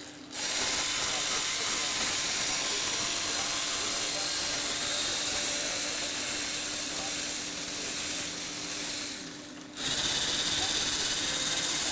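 Lego Technic electric motor whirring as it drives the model car lift's gear train, stopping for a moment just after the start and again about nine and a half seconds in, then running on.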